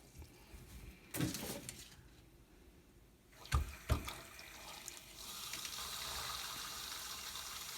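Two sharp knocks, then water running steadily from about five seconds in, as measured cups of water are added for cooking rice.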